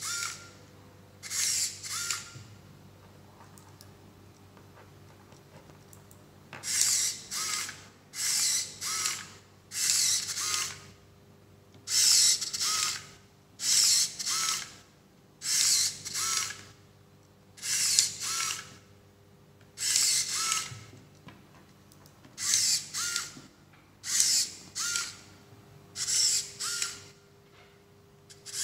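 Small servo motors in a 3D-printed bionic hand whirring in short bursts as they drive the fingers open and closed, the bursts mostly coming in pairs about every two seconds. Each burst ends in a brief tone, and there is a pause of a few seconds near the start.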